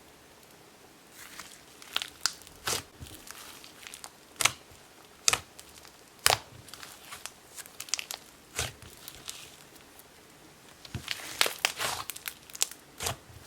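Icy slime being squished and stretched by hand, crackling with irregular sharp pops, and a quicker run of crackles near the end.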